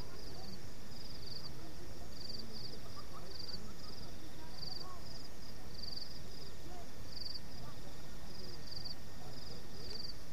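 Crickets chirping at night: short, high, pulsed chirps about twice a second, over a steady low background noise.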